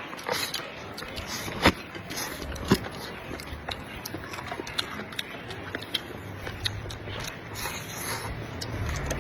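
A person chewing crunchy food close to the microphone, with irregular sharp crunches and clicks. Two louder cracks come about a second apart, near the start.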